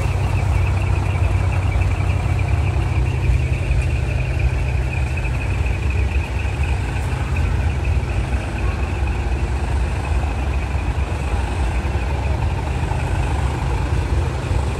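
Large truck engines idling, a steady low rumble that stays even throughout, with a steady high-pitched tone above it.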